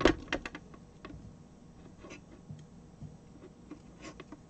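Small clicks and rustles of fingers untwisting the wire pairs at the stripped end of a twisted-pair LAN cable. A quick flurry of sharp clicks comes at the start, then a few faint scattered ticks.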